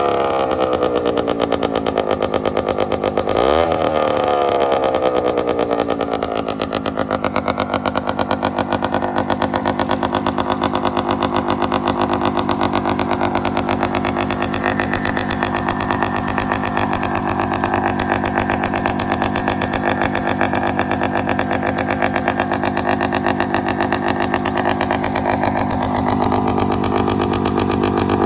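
Hodaka Ace 100 single-cylinder two-stroke engine in a 1970 Bonanza chopper mini bike, blipped once about three and a half seconds in so the pitch rises and falls away, then idling steadily.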